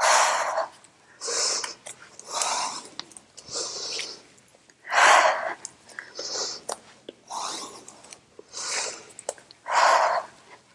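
A woman breathing hard through an exercise, with a noisy breath about every second in time with her movements.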